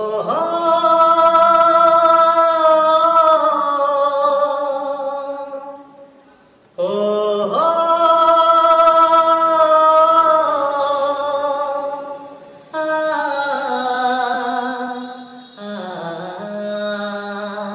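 A male singer holding long drawn-out sung notes in four phrases. The first two last about five or six seconds each, and the last two are shorter. Each note sags a little in pitch as it fades.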